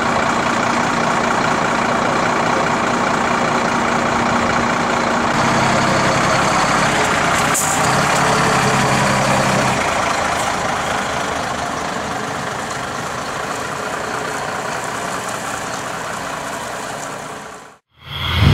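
A Renault coach's diesel engine running steadily close by, with a deeper engine note for a few seconds in the middle. The sound then grows gradually fainter and cuts off suddenly near the end.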